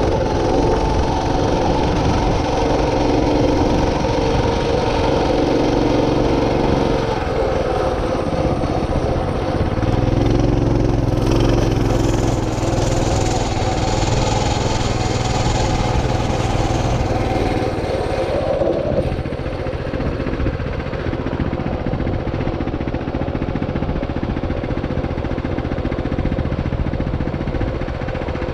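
A small vehicle engine running steadily as it travels, its pitch shifting a few times along the way.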